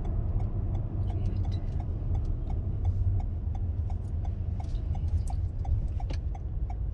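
A car's turn-signal indicator ticking evenly, about three ticks a second, over the low rumble of road noise inside the cabin.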